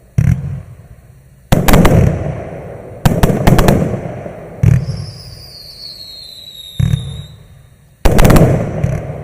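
A 100-shot, 0.8-inch-calibre fan-shaped firework cake firing: loud shots in irregular groups, some single and some in quick runs of three or four, each dying away after it. A falling whistle sounds near the middle.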